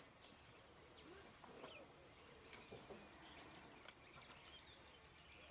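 Faint outdoor ambience with scattered short bird chirps and a few small clicks.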